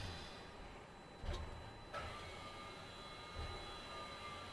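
Lift cabin running in its shaft: a low rumble with a few knocks, and a thin steady whine from about two seconds in.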